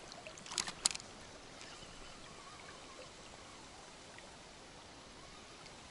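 Faint, steady rush of a small river's rippling current, with a few sharp clicks in the first second.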